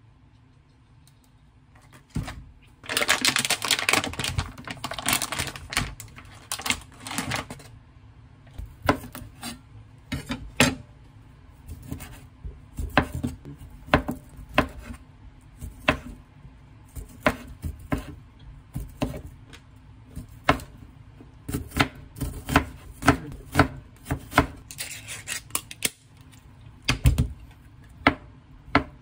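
A wide-bladed kitchen knife slicing kielbasa sausage and a block of luncheon meat on a wooden cutting board: sharp knocks of the blade hitting the board, irregular at roughly one to two a second. A few seconds of dense rustling come near the start.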